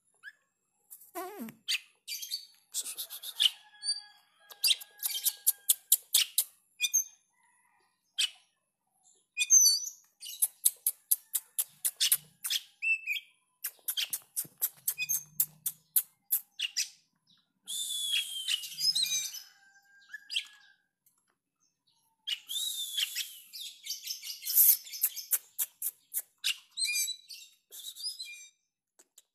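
Oriental magpie-robin singing in full voice: phrases of rapid, sharp, high notes, trills and whistles, broken by brief pauses.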